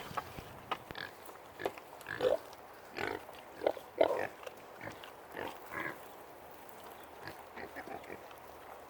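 Hogs making a run of short calls, loudest and most frequent around the middle, then fewer and fainter toward the end.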